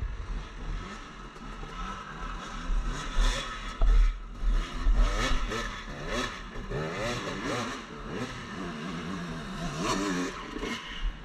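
Off-road dirt bike engines revving up and down, the pitch rising and falling several times, with a heavy low rumble from wind and jolts on the microphone.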